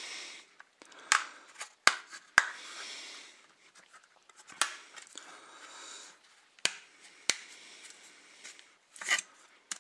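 Back cover of a Landvo L800 smartphone being pried off by hand: several sharp, irregular clicks as its clips snap loose, with soft scraping between them.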